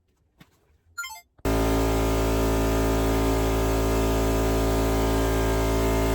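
Electric air compressor running with a steady hum, starting abruptly about a second and a half in.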